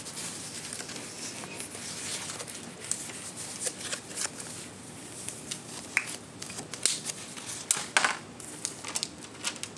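Sheets of paper and cardstock being handled and leafed through: papery rustling and sliding, with a few sharper snaps and taps in the second half.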